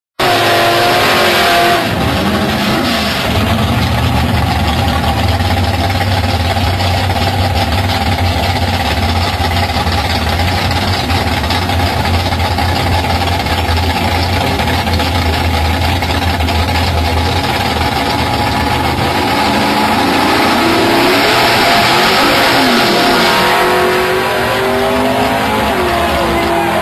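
Drag-race Camaro engines running loud at the strip, holding a steady note for a long stretch and revving up and down, with pitch sweeps near the start and again about 21 to 24 seconds in.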